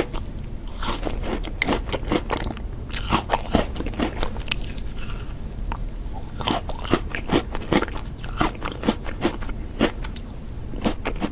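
A person eating ice cream, biting and chewing with an irregular run of crisp crunches.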